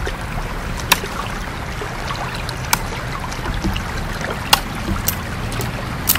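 Steady rushing of running water, with a handful of sharp cracks scattered through it.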